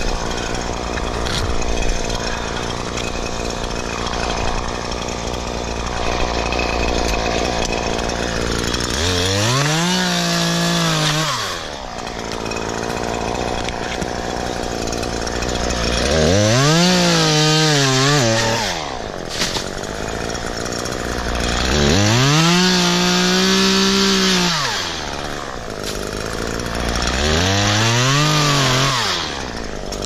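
Stihl MS 150 top-handle two-stroke chainsaw running at idle, then revving up four times, each time climbing in pitch, holding for a couple of seconds and dropping back to idle as it cuts into palm fronds.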